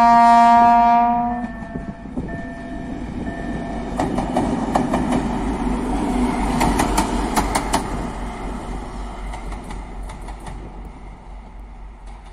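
M62-class Soviet-built diesel locomotive, whose engine is a two-stroke V12, sounding its horn in one loud steady chord that stops about a second and a half in. It then passes close by with its engine running, and its wheels click sharply over the rail joints for a few seconds around the middle before the sound fades away.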